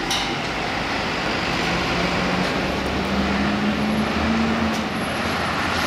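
City street traffic running steadily below. A heavy vehicle's engine comes up about two seconds in, rising slightly in pitch, and fades near the end.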